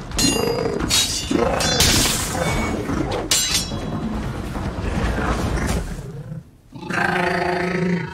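A Predator's guttural growls and roars, mixed with sharp metallic clangs of a katana clashing against its blades, over a film score. A short lull near the end is followed by a long, loud roar.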